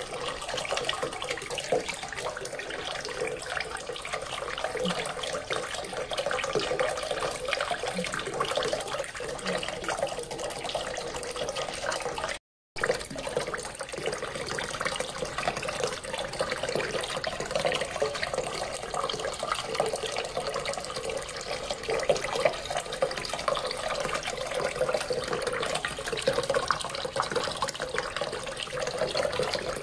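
Small submersible-pump fountain's water jet splashing steadily back into a basin of water. The sound cuts out for a fraction of a second about twelve seconds in.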